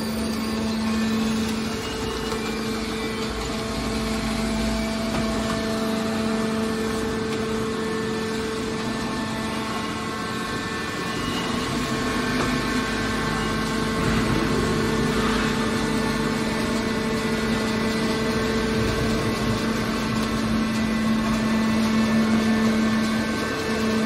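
Horizontal hydraulic scrap steel baler's power unit running, a steady machine hum with a constant low tone over a noisy mechanical whir.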